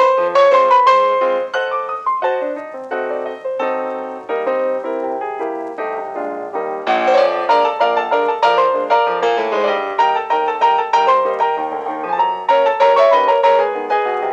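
Background piano music: a quick, busy line of notes, thinner for a few seconds and fuller again from about seven seconds in.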